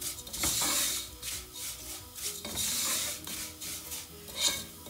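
Wooden spoon stirring and scraping thin vermicelli being toasted in oil in a nonstick pot, in repeated rasping strokes, with a louder knock near the end. The vermicelli is dry-toasting and just turning golden.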